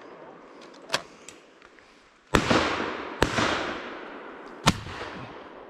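Shotgun shots at flying ducks: a faint shot about a second in, then two loud shots less than a second apart, each echoing and dying away, and another sharp shot about a second and a half later.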